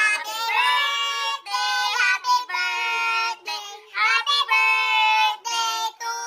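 A child's high voice singing a melody in long held notes, phrase after phrase with short breaks between.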